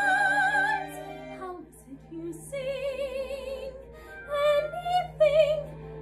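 A woman singing in a classical soprano voice with wide vibrato. A long high note ends about a second in, and after a short pause she sings shorter phrases.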